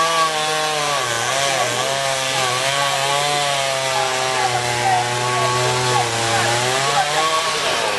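Two-stroke chainsaw running at high revs as it cuts trees, its pitch dropping about a second in under load and rising again near the end before it dies away.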